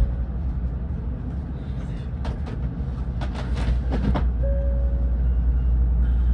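Steady low rumble and hum inside a Tokaido Shinkansen passenger car standing still. A short run of clicks and rustles comes in the middle.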